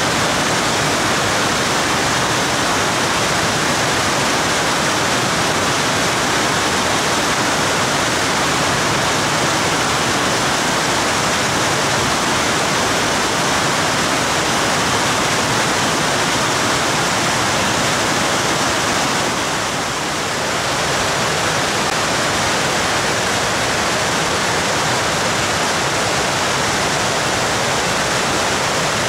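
Plästerlegge waterfall in high flow after heavy, prolonged rain: a loud, steady rush of falling water.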